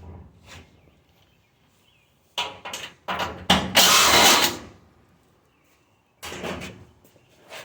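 Power tool run in short bursts while taking apart a stainless steel dishwasher: several about two to five seconds in, the longest around four seconds in, and one more near the end.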